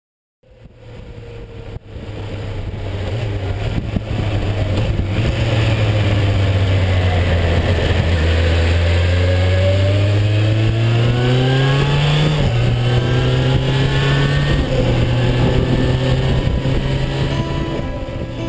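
Motorcycle engine heard from an onboard camera with wind rushing over the microphone, fading in at the start. The engine pulls up through the revs, drops in pitch at a gear change about twelve seconds in, then runs steadily at road speed.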